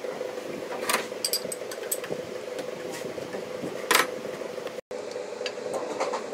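Sharp metallic clicks and light ticks of engine parts and hand tools being handled during reassembly of a small car engine's timing-belt end, the loudest about four seconds in, over a steady background hum.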